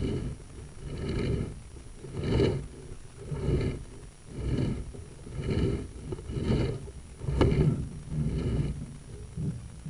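Sewer inspection camera's push cable being pulled back out of the drain pipe, a rasping scrape repeating about once a second with each pull.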